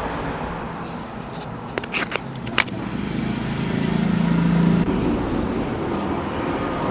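A few sharp clicks of fan parts being handled, then a low engine hum that swells and fades away, like a motor vehicle going by, over a steady background noise.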